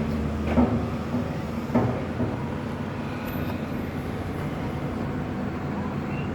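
A motor engine hums steadily, broken by two short knocks about half a second and two seconds in.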